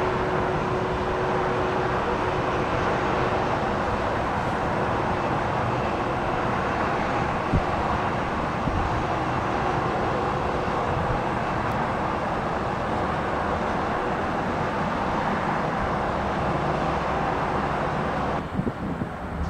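Jet aircraft engines running with a steady, even noise and a faint hum that fades over the first half. The sound changes abruptly near the end.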